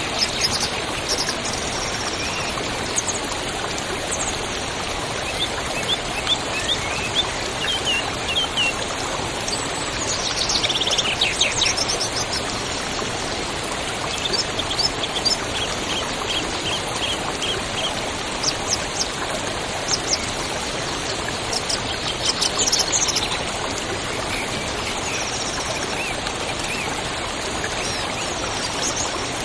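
River water running steadily, with small birds chirping and trilling over it in repeated short phrases.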